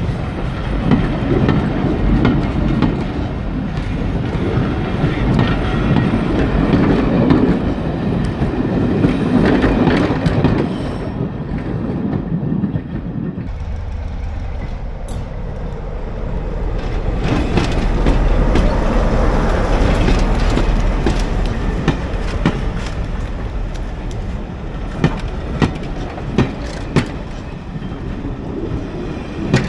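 Diesel train running on the heritage line, a loud steady rumble of engine and wheels that eases off partway through and builds again, with sharp clicks of wheels over rail joints near the end.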